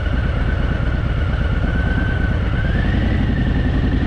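Harley-Davidson Fat Boy's V-twin engine running steadily under way, with a thin whine that steps up in pitch about two and a half seconds in.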